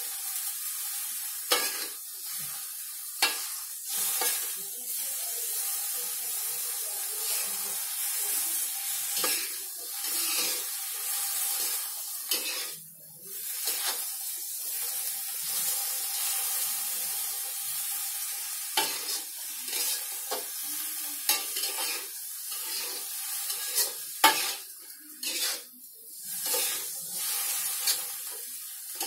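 Water spinach sizzling in a wok as a spatula stirs it, with sharp clicks now and then as the spatula strikes the wok.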